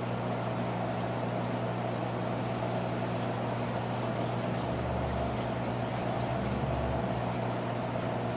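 Saltwater aquarium pump and filter running: a steady electrical hum under a hiss of moving water, with a low rumble swelling briefly in the middle.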